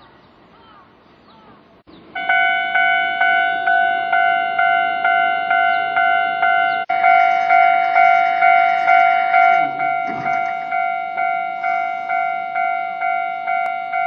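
Japanese railway level crossing warning bell starts abruptly about two seconds in and rings at a steady clang of about two strokes a second, each stroke a multi-tone ding that decays before the next. This is the signal that a train is approaching and the crossing is closing.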